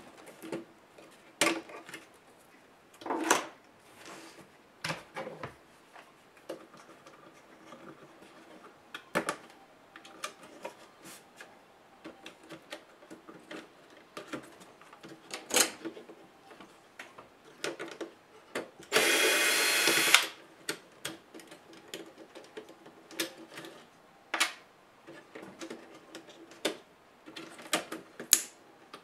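A SKIL cordless electric screwdriver runs once for about a second, about two-thirds of the way through. Around it come scattered clicks and knocks of plastic laptop parts and tools being handled.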